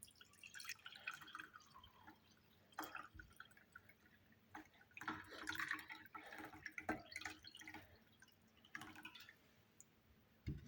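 Faint liquid dripping and small splashes of the lemon-ginger drink, with light irregular clicks of a spoon or glass, ending with a soft knock.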